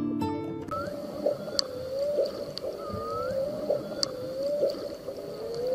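Plucked-string music stops just under a second in and gives way to an underwater recording of whale calls. The calls are repeated rising and falling moans with a higher rising whistle, over scattered sharp clicks and a hissy underwater background.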